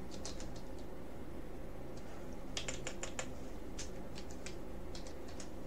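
Computer keyboard being typed on: short runs of key clicks near the start and again through the second half, with a pause of about two seconds between, over a steady low hum.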